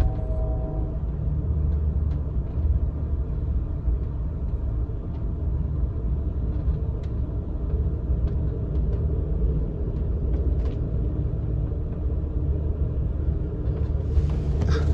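Amtrak California Zephyr passenger train running along the track, a steady deep rumble with faint scattered clicks; a horn-like chord of steady tones fades out about a second in.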